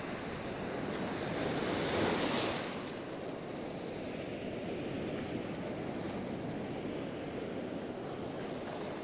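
Ocean surf breaking and washing through the shallows, with wind buffeting the microphone. A wave swells loudest about two seconds in, then the wash settles back to a steady rush.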